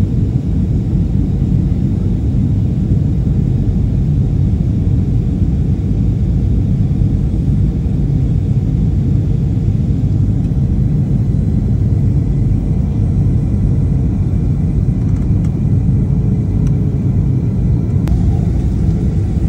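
Steady low rumble of jet airliner cabin noise, engines and airflow heard from inside the cabin, with a faint steady hum.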